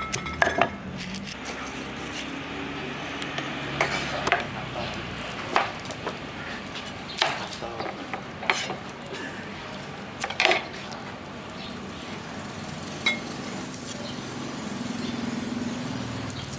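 Kitchen utensils and dishes knocking and clinking: a handful of separate sharp taps a second or two apart.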